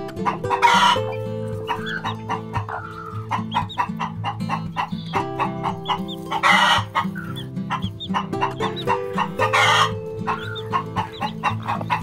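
Newly hatched chicks peeping, with three loud, harsh, short chicken calls, over background music with sustained notes.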